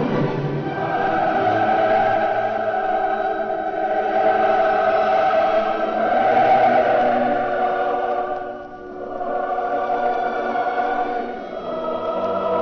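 Background music: a choir singing long held chords, dipping briefly between phrases twice in the second half.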